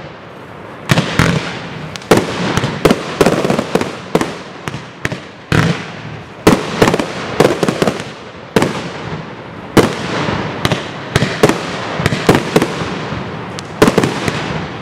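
Aerial firework shells bursting in a professional display: a rapid series of sharp bangs, one or two a second, after a brief lull at the start.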